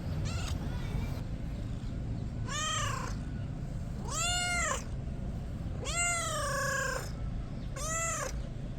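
Kitten meowing repeatedly: a faint meow near the start, then four clear meows about every one and a half to two seconds, each rising then falling in pitch; the fourth is the longest, about a second, sliding down at its end.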